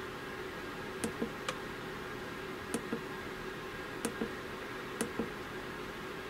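Push buttons on a TriMetric TM-2025-RV battery monitor clicking as they are pressed and released, a pair of light clicks about every second, five presses in all. A steady hum runs underneath.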